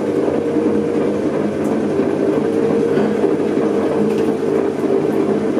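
Electric potter's wheel running steadily with a low motor hum and a faint held whine, while wet clay is coned up on the wheel head during centring.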